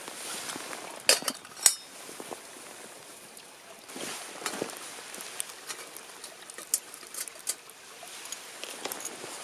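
Small hard objects being handled: two sharp clinks a little over a second in, then scattered lighter taps and knocks over a soft steady hiss.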